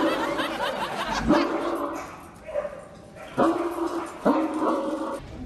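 Dog barks and whines imitated by a person: a few short, drawn-out yelping calls, three of them standing out in the second half.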